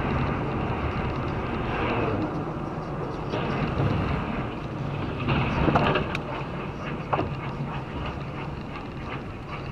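Steady road and engine noise inside a moving car's cabin, recorded by a dashcam. A few louder knocks and clatters come a little over halfway through, as the lorry ahead crashes and sheds debris.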